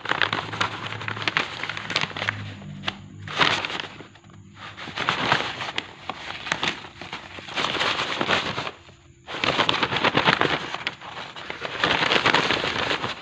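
Stiff brown paper rustling and crinkling in bursts as a kitten rolls on it and paws at it, with short pauses about four and nine seconds in.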